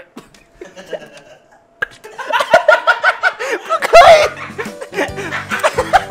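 A group of people bursting into loud, rapid laughter and excited voices about two seconds in, with background music underneath from about halfway.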